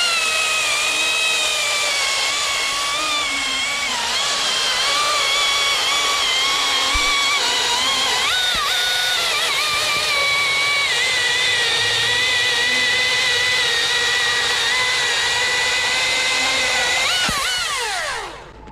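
Husqvarna T540i XP battery-powered top-handle chainsaw cutting through a log: a steady, high electric motor-and-chain whine whose pitch dips and wavers as the bar loads up in the wood. Near the end the pitch falls away quickly as the saw winds down and stops.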